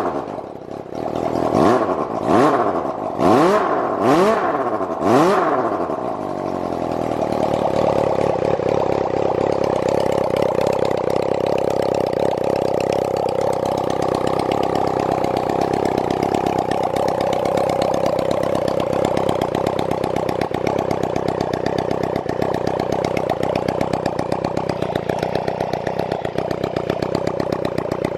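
Suzuki Bandit 250V's inline-four engine revved in a series of quick throttle blips, each rising and falling back, then settling about six seconds in to a steady idle. The seller rates it as revving up cleanly with no abnormal noise.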